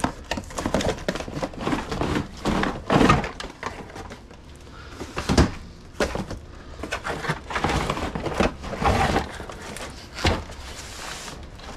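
Cardboard box being handled and opened: irregular rustling and scraping of the flaps with a few sharper knocks as a heavy boxed string trimmer is worked out of it.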